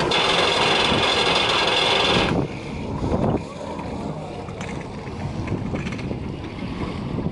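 A boat horn sounds one steady blast of about two seconds and cuts off suddenly, followed by the low running of the water taxi's engine as it pulls away, with wind on the microphone.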